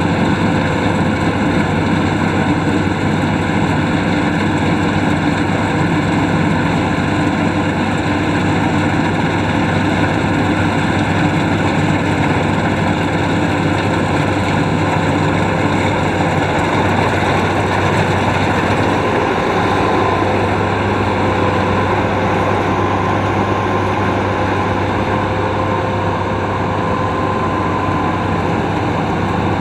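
Combine harvester's diesel engine and machinery running steadily under load, with a constant low hum. A faint steady whine joins it about two-thirds of the way through.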